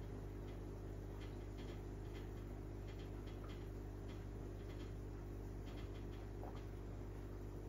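Steady low hum with faint, irregular ticks scattered over it.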